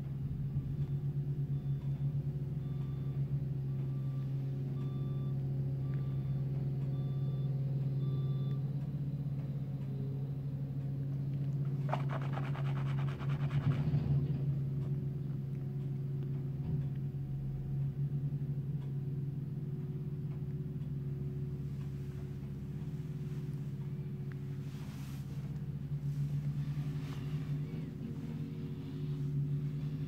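Diesel engines of a small ride-on tandem road roller and a backhoe loader running steadily at road works, heard through window glass. A machine's reversing alarm beeps regularly for the first several seconds, and there is a brief louder rattle about halfway through.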